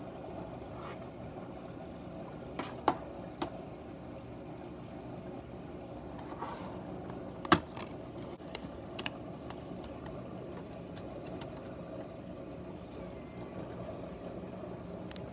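A few sharp plastic clicks from a DVD case and disc being handled and loaded into a DVD player, the loudest about seven and a half seconds in, over a steady low hum.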